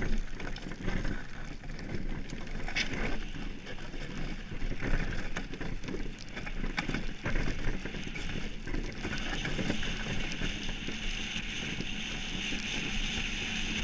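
Monotype XV iceboat's steel runners running over lake ice, a steady rough rumble and hiss, with wind buffeting the microphone. The hiss grows brighter and steadier from about nine seconds in.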